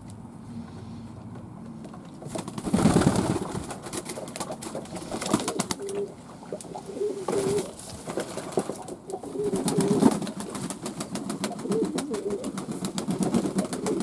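Fantail pigeons cooing: runs of short, low coos in the second half, with a brief loud rustling burst about three seconds in.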